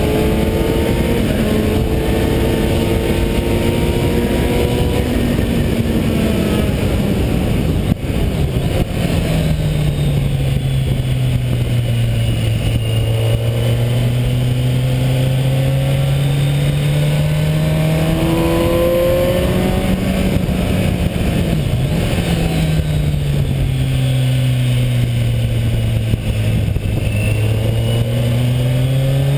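Kawasaki Ninja 1000's inline-four engine pulling hard on a racetrack, its revs falling and climbing in two long sweeps through the corners, under loud wind rush on the bike-mounted camera.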